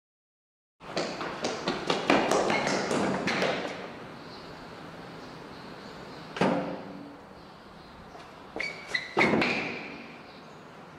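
Hands pounding and slapping on a large glass wall mirror: a rapid flurry of thuds about a second in, one hard thud a few seconds later, and another short flurry near the end.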